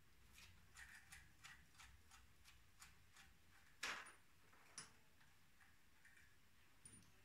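Faint, slow clicking of a hand ratchet turning a bolt, about three clicks a second, then a louder metal clank about four seconds in and a smaller one about a second later.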